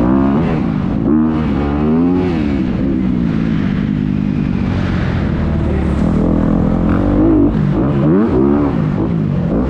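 Several dirt bike engines revving during a race. Their pitches climb and drop again and again, overlapping one another.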